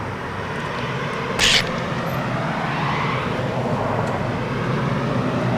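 Steady outdoor background rumble and hiss, with a short sharper hiss about one and a half seconds in.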